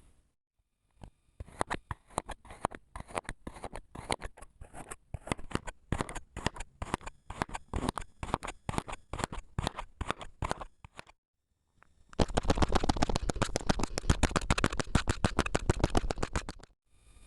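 Kinetic sand being cut, giving short crisp crunches at an irregular rate of several a second. After a brief silent break about 11 seconds in, a louder, denser run of rapid crunching follows.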